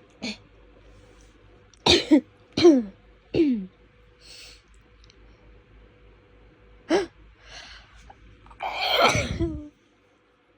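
A fit of rapid, hitchy human sneezes: a quick cluster of three or four sharp sneezes about two seconds in, another about seven seconds in, and a longer, louder one near the end, with short breaths in between.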